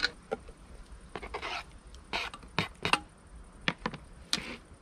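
Kitchen knife scraping minced meat off a plastic cutting board into a small metal pot, with a series of short knocks and scrapes as the pot and knife are handled on a wooden table.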